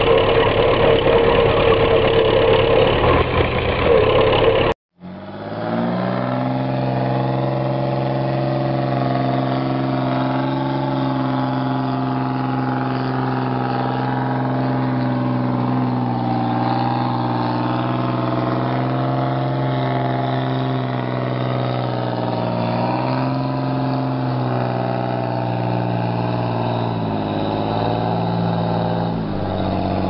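For the first few seconds, a stuck forestry tractor's engine runs under load. After a brief cut, a heavy cargo truck's diesel engine holds a steady high note as its mud-packed rear wheels spin in clay, the pitch dipping briefly a couple of times near the end.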